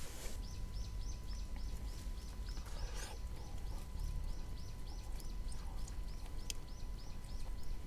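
An animal chirping in a fast, even series of short high chirps, about four a second, over a steady low rumble of background noise.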